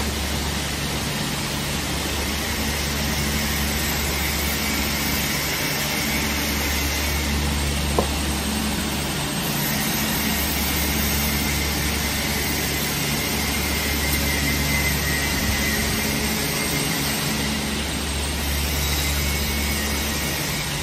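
Automatic hydraulic hinge assembly machine running: a steady low mechanical hum, with one sharp click about eight seconds in.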